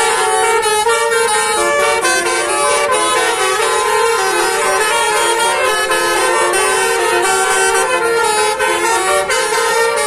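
A bus's basuri telolet horn, several horn trumpets sounding together in a fast tune of stepped notes, loud and without a break.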